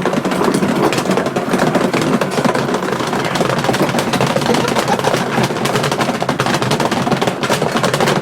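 Small RV washing machine running with a loud, fast, continuous rattling clatter.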